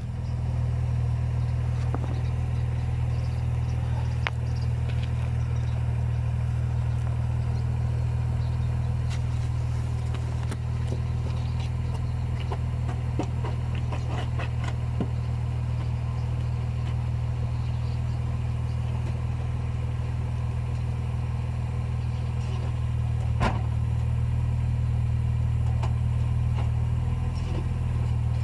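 BMW E46 engine idling steadily, with scattered light clicks and knocks over it and a sharper knock late on.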